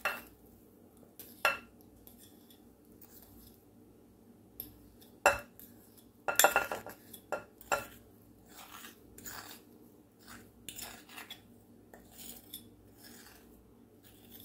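A utensil scraping and clinking against a glass mixing bowl while sticky biscuit dough is scraped out onto the filling in a glass dish. The clinks and scrapes come irregularly, with a few sharper knocks among many softer ones.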